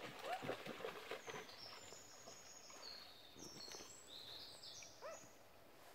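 A songbird singing faintly, a run of high, steady notes stepping up and down in pitch, over a few soft plinks of water dripping from a kayak paddle.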